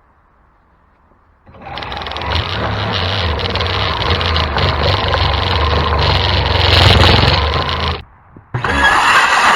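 Power saw cutting in two runs: it starts about a second and a half in, runs loudly for about six seconds, stops briefly, then starts again near the end.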